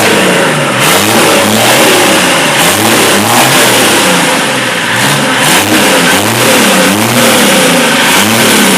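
Chevrolet D60 truck engine being revved in repeated short blips, its pitch rising and falling about once a second. It is running again after standing for about four years.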